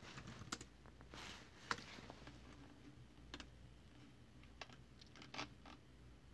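Faint, scattered keystrokes on a computer keyboard: a handful of separate clicks spaced irregularly, with no steady typing run.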